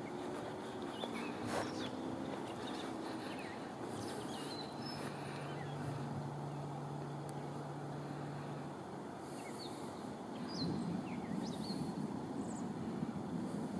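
Outdoor evening ambience: a steady low rumbling hiss, like distant traffic, with short high bird chirps scattered throughout. A low steady hum runs for a few seconds midway, and a deeper low rumble swells about ten seconds in.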